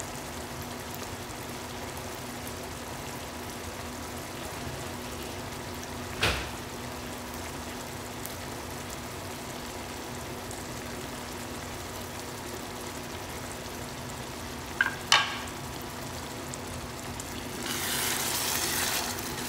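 A pan of picadillo, ground beef in tomato sauce, simmering and bubbling steadily, with a faint steady low hum underneath. There is a sharp click about six seconds in and two quick clicks around fifteen seconds. Near the end a wooden spatula stirs through the sauce, and the sizzling and scraping grow louder.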